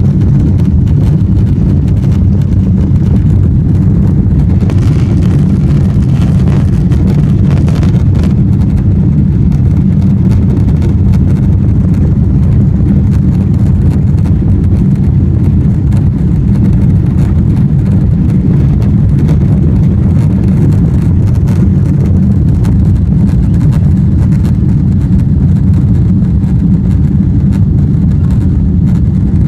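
Cabin noise of a Boeing 777-300ER on its takeoff run: the GE90-115B engines at takeoff thrust and the runway roll make a loud, steady low rumble as the airliner accelerates and lifts off.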